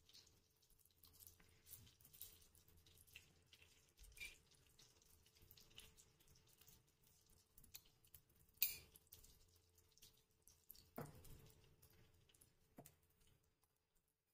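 Ghee melting and heating in a non-stick frying pan, giving faint scattered crackles and ticks, with one sharper click a little past halfway and a couple of duller knocks near the end.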